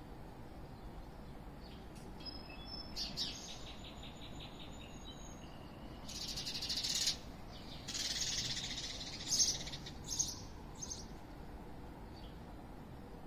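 A small songbird singing: a high trill about three seconds in, then two longer, buzzy, fast-chattering songs around six and eight seconds in, followed by a few short chirps. Under it runs a steady low background hum.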